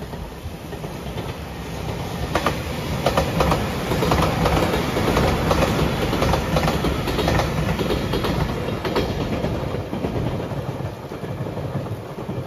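JR Shikoku 8000 series electric limited express train passing. Its wheels click over the rail joints as it runs by; the sound builds over the first couple of seconds and fades near the end.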